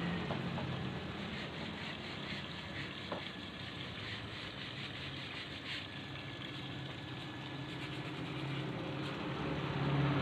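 Radar electric water pump running with a low steady hum, while water rushes and bubbles into a plastic tub with a hissing sound.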